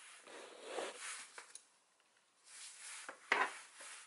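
A spanner being worked onto a brake hose fitting nut by gloved hands: soft rubbing and rustling with a few small metallic clicks, the loudest about three and a third seconds in.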